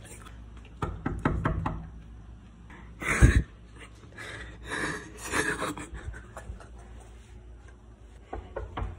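A quick run of knocks about a second in, then one loud thump just after three seconds, followed by breathy rustling noises.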